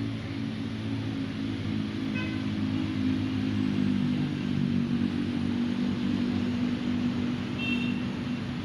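Road vehicle engine running steadily as it passes, a low drone that swells a little in the middle. Two short high chirps sound over it, about two seconds in and near the end.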